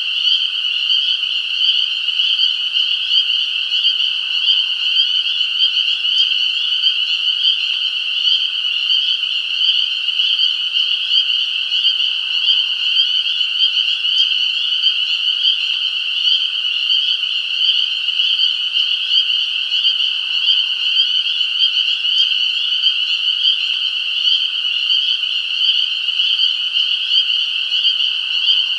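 A chorus of many frogs calling at once, a dense, steady, high-pitched din with no breaks.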